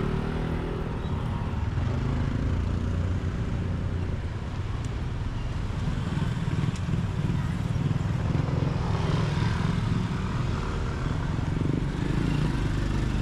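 Street traffic noise, with a motor vehicle engine running steadily.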